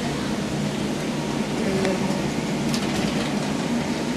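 Steady mechanical hum under an even rushing noise, with a few faint ticks.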